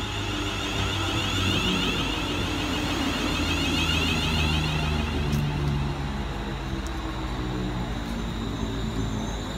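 Class 360 Siemens Desiro electric multiple unit pulling in alongside the platform. A steady rumble of wheels and running gear comes with a high whine, louder through the middle of the pass.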